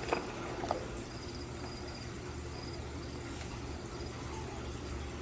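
Faint, high, insect-like chirps in a few short runs over a low steady hum, with a couple of light clicks in the first second.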